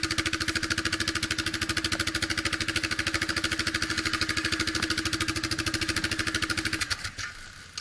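Off-road vehicle's engine idling close by with an even, rapid pulsing beat. The sound falls away abruptly about seven seconds in.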